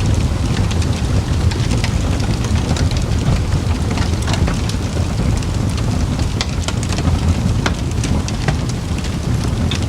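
Campfire crackling: irregular sharp pops and snaps of burning wood, several a second, over a steady low rumble of the flames.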